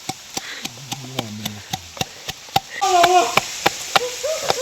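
Knife chopping on a cutting board in a steady rhythm, about three strokes a second.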